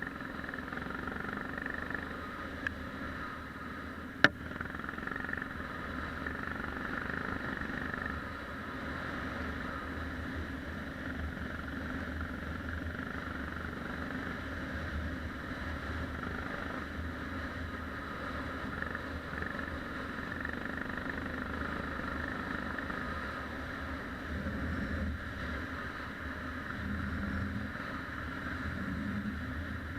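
Yamaha XT 600 single-cylinder four-stroke engine running steadily, with one sharp click about four seconds in.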